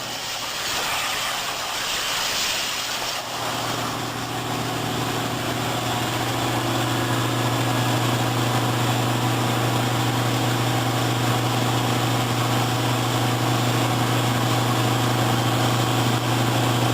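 CNC plasma cutter cutting metal: a steady hiss with a low hum underneath that grows firmer a few seconds in.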